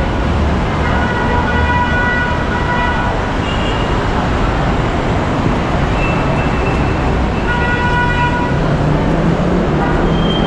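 MRT-3 train in motion: steady, loud running noise, with a high-pitched whine that comes and goes a few times.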